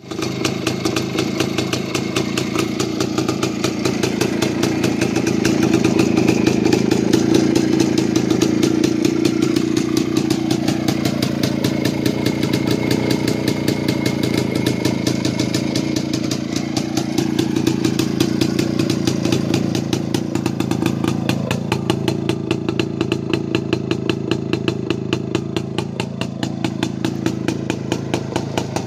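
Jawa 250 type 353/04 single-cylinder two-stroke engine idling steadily on its stand, running on a newly fitted CDI electronic ignition; its speed swells slightly now and then.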